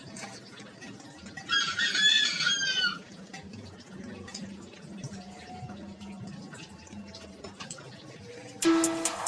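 A rooster crows once, about a second and a half in, lasting about a second and a half and falling in pitch at the end. Music with clear piano-like notes starts near the end.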